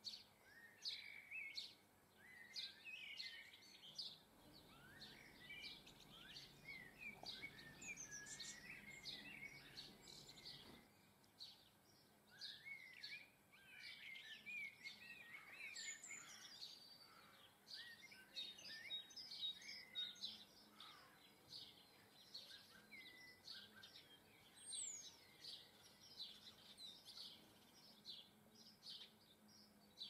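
Small garden songbirds faintly twittering and chirping: a busy, continuous run of short high notes and quick gliding calls.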